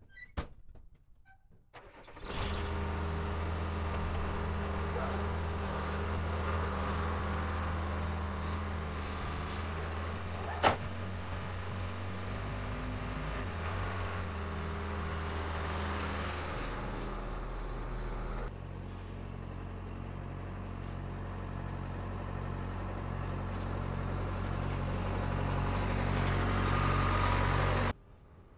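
Backhoe loader's diesel engine running steadily, with one sharp click about ten seconds in. The sound cuts off suddenly near the end.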